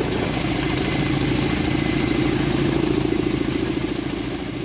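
Kamov helicopter's turbine engines and coaxial rotors running steadily, with a fast, even rotor pulsing over a constant hum.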